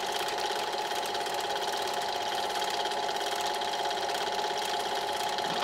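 Cine film projector running: a steady whirr with a fast, even ticking from the film advancing.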